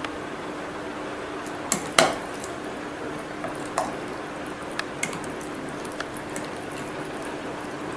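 A metal spoon stirring thick yogurt-soaked oats and chopped fruit in a glass jar, with scattered clinks of the spoon against the glass, the loudest about two seconds in.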